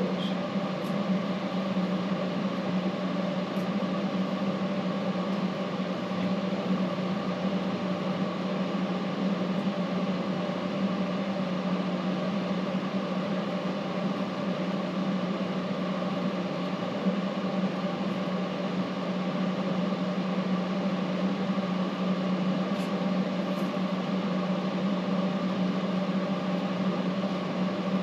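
Steady machine hum with a low, unchanging tone throughout, with a faint click about 17 seconds in.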